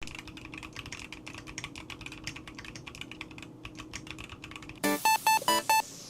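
Fast typing on a NEO65 mechanical keyboard with Haimu Joker switches and double-shot PBT keycaps: a quick, dense run of key clacks. About five seconds in, a bright melody of short plucked notes comes in, louder than the typing.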